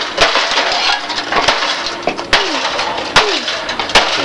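A toaster oven being smashed: about five sharp blows, roughly one every second, with glass and metal breaking and crunching between them.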